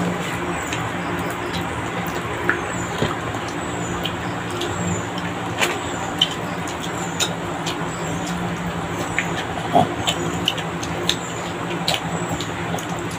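Eating sounds, with scattered sharp clicks of utensils on plates and chewing, over a steady low mechanical hum like a motor running.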